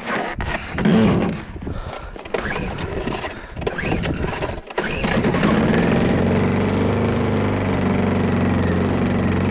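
Small portable generator engine being started in the cold. After a few seconds of irregular knocking and handling noise it catches, about five seconds in, and runs steadily.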